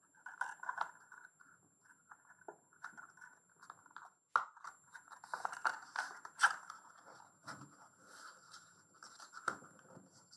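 A sheet of paper rustling and crackling as hands fold and crease it into accordion pleats, in irregular bursts, with the sharpest crackles about four and six and a half seconds in.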